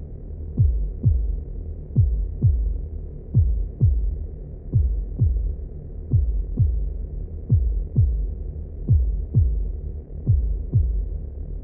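Heartbeat sound effect at 90 BPM: deep thumps in lub-dub pairs, a pair about every one and a half seconds, each thump dropping in pitch, over a low steady rumble.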